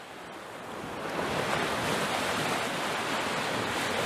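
Ocean surf washing onto a beach, a steady rushing hiss that fades in over the first second and a half.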